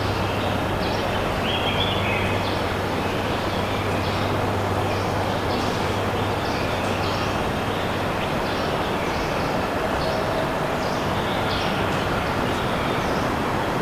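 Outdoor park ambience: a steady wash of distant traffic rumble and hiss with a low hum that fades about a third of the way in. Short, high bird chirps repeat every second or so over it.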